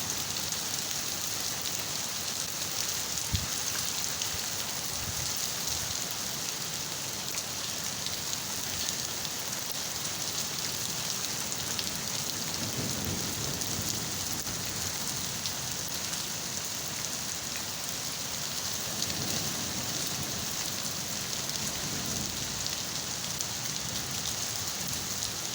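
Steady rain falling, an even hiss that stays constant throughout. A low rumble swells softly a little past the middle and again later on.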